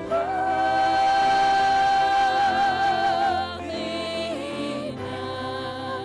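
Worship music with singing: a voice holds one long note for about three seconds, wavering near its end, then moves on to shorter, lower notes over the accompaniment.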